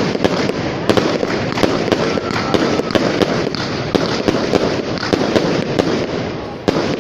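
Fireworks display going off: a dense, continuous crackle punctuated by many sharp bangs, several a second. The crackle thins out after a last loud bang near the end.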